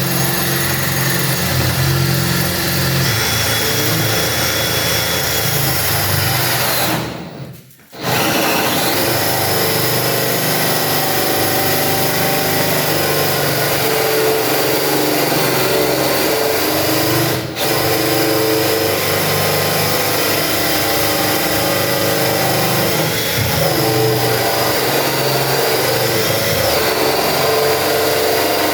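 Electric drill running a hole saw that cuts the lock bore through a plywood door, with a steady whine; the drill stops for about a second some seven seconds in, then starts again and keeps cutting, with a brief dip near the seventeen-second mark.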